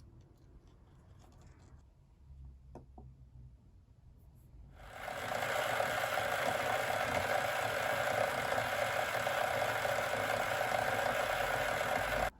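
A small electric motor or power tool running steadily, coming up to speed about five seconds in and stopping abruptly near the end. Before it, faint handling taps and clicks.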